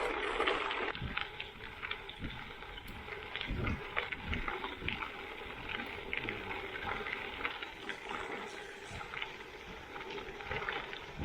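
Bicycle riding noise: tyres rolling with a steady crackle, and wind buffeting the microphone in uneven low gusts.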